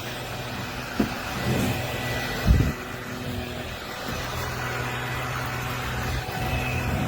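Cordless stick vacuum motor running steadily with a high whine, with two sharp knocks in the first few seconds.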